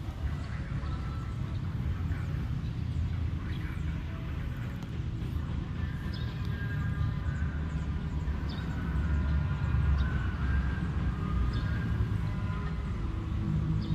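A motor engine runs with a steady low rumble; from about six seconds in a higher whining tone rides over it, with a few faint clinks.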